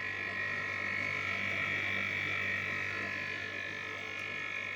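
Air-conditioner compressor running with a steady buzzing hum made of several steady tones.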